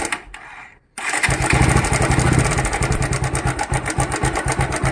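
Bajaj Pulsar single-cylinder motorcycle engine cuts out near the start, then starts again about a second in and runs with a fast metallic clatter. This is timing chain noise, which the mechanic traces to a faulty timing chain tensioner.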